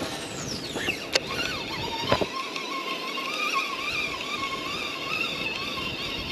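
Baitcasting reel during a cast: the spool's whine falls in pitch as it slows, a click as the reel is engaged, then a steady, slightly wavering whine as the lure is reeled in.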